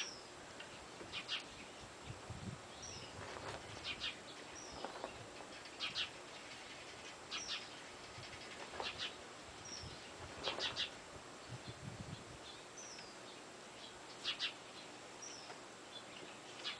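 Small birds chirping: short high chirps and quick chirp clusters every second or two, with a few faint low knocks.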